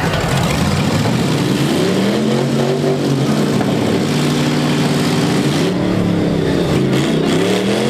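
Demolition derby pickup truck engines revving hard, several at once, rising and falling in pitch as the locked-together trucks push against each other.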